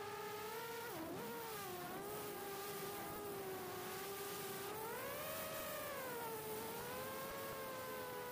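Brushless motors and propellers of a 4-inch FPV quadcopter (HGLRC 1303.5 4500kv motors) whining in flight, as picked up by the onboard camera. The pitch drops sharply about a second in as the throttle is chopped and comes back. Around five seconds in it swells higher, then settles back to a steady whine.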